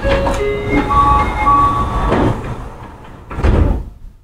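Electric commuter train's sliding passenger doors at a station stop. A short chime of stepped tones sounds, then the doors bang shut about three and a half seconds in.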